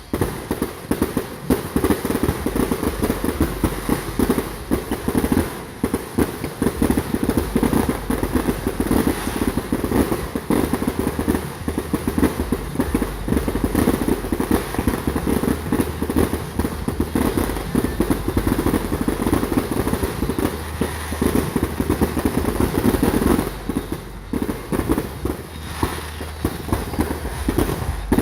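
Fireworks going off in a dense, continuous barrage of rapid bangs and crackles, easing briefly about 24 seconds in.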